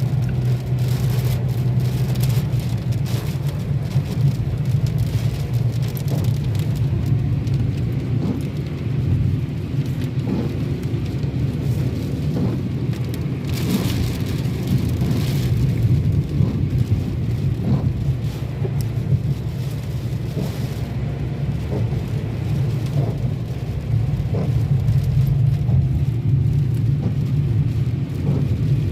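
Heavy rain pouring down in a windy thunderstorm, an even hiss of spatters over a steady low rumble.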